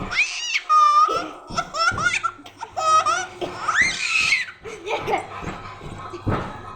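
Small baby laughing in a run of high-pitched giggles and squeals, strongest in the first half and trailing off toward the end.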